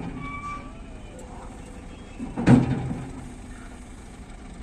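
Steel loading ramp of a lowboy trailer coming down and landing on the ground with a single loud impact about two and a half seconds in, over the steady low rumble of an idling diesel engine.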